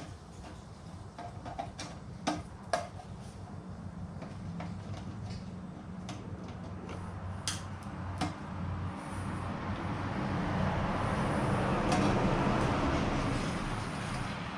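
Scattered clicks and knocks of a metal computer power supply case being worked open by hand, over a steady low hum. Near the end a broad rushing noise swells up and eases off again.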